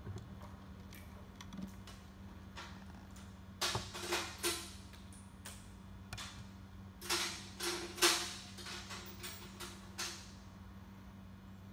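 Clicks and knocks of hand tools and bolts being handled on the trailer's metal tarp-arm brackets, in a few short clusters, over a steady low hum.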